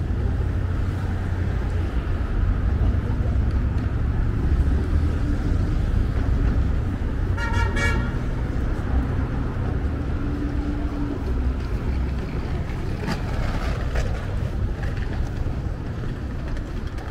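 Busy city road traffic running steadily, with a vehicle horn sounding once, briefly, about seven seconds in.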